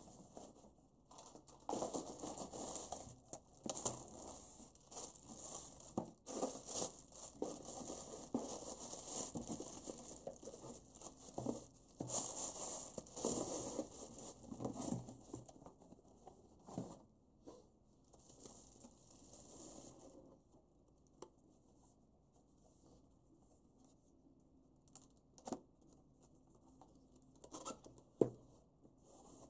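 Cardboard shipping box being opened and plastic-wrapped packages pulled out: plastic crinkling, rustling and tearing for the first half, then quieter handling with a few light taps and one sharper knock near the end as the small boxed camera is set down on the wooden table.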